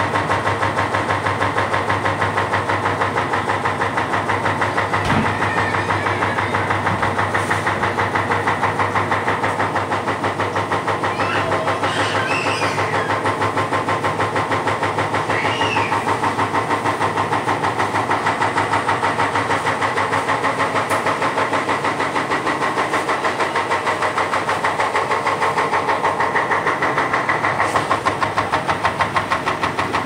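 Samsung top-load washing machine running with a rapid, regular knocking as its tub shakes about. The owner thinks something seems to have come loose.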